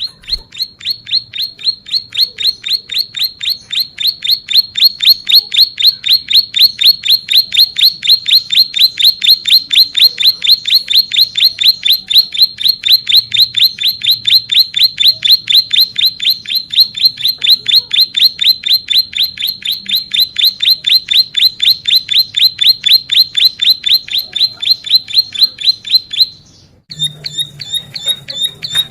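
Ciblek sawah (plain prinia) singing a long unbroken trill of rapid, evenly repeated high notes, about five a second. It stops about 26 seconds in, and after a short break the bird starts a different series of notes.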